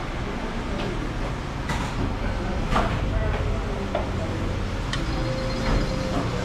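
Busy street-stall ambience: a steady low rumble of traffic and background voices, with several sharp clinks of metal tongs and a ladle against a metal pot and ceramic bowls.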